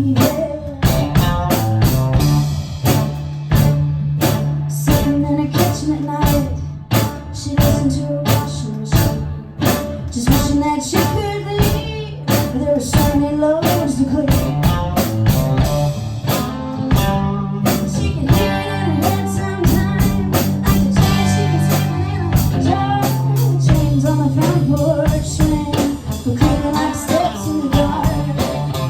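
A small live band playing a song, with a steady beat of percussive strikes over a sustained bass line and a wavering melody above.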